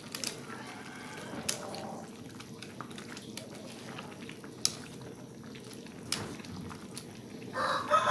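Braised vegetables simmering in a pan, a steady low bubbling with a few sharp clicks. Near the end a rooster starts crowing.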